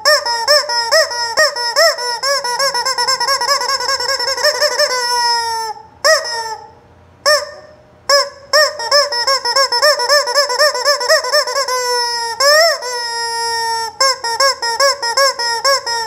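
Rubber screaming-chicken toy being squeezed, giving long, loud squawking squeals that warble rapidly up and down in pitch, with a few short gaps in the middle.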